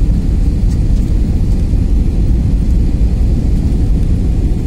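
Steady low rumble of jet airliner cabin noise, engines and rushing airflow heard from inside the cabin during the approach to landing.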